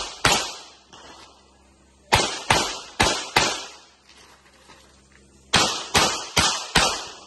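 Pistol shots in quick strings: one right at the start, four fired about half a second apart around two seconds in, and four more at the same pace near the five-and-a-half-second mark, each shot with a short ringing tail.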